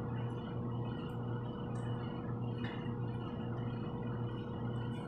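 Steady low machine hum in a workshop, with a few faint light metallic clicks as a BMX bike chain is worked off its sprockets after its master link has been opened.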